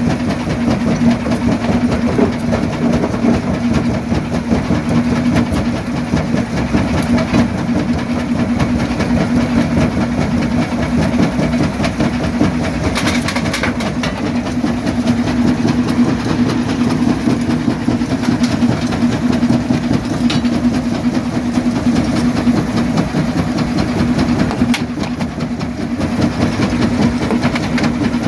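Quarry primary jaw crusher running and crushing rock: a steady machine hum under a dense, continuous clatter of breaking stone.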